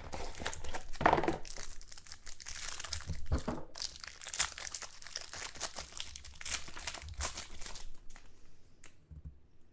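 Plastic wrapping on 2013 Absolute football trading-card packaging being torn open and crinkled by hand: dense crackly rustling that dies down in the last couple of seconds.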